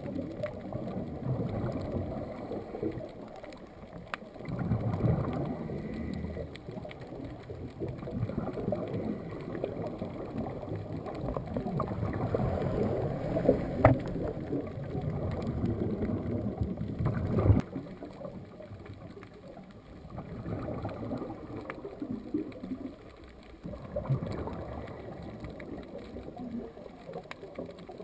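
Scuba divers' exhaled regulator bubbles heard underwater, a low gurgling rumble that swells and fades in stretches of a few seconds. A couple of sharp knocks stand out about halfway through and again a few seconds later.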